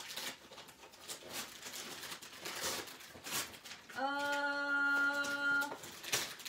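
Gift wrapping paper being torn and crinkled by hand as a present is unwrapped, in short rustling tears. About four seconds in, a steady whine at one held pitch sounds for under two seconds, louder than the paper.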